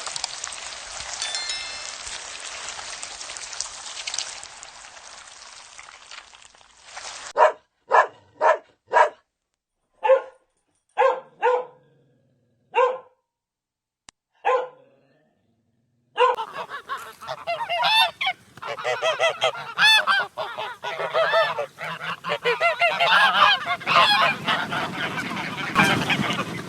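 Waterfowl honking. First comes a steady hiss for several seconds, then about ten short, separate honks over several seconds. From about halfway through, a flock calls together in a dense, overlapping clamour of honks.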